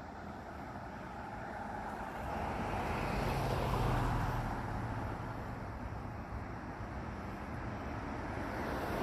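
A motor vehicle going by. Its engine and tyre noise swell to a peak about three to four seconds in, then fade.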